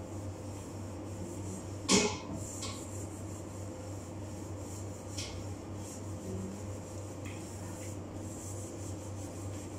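Gloved hands handling small containers on a kitchen counter: a sharp knock about two seconds in, then a few lighter clicks and rubbing, over a steady low hum.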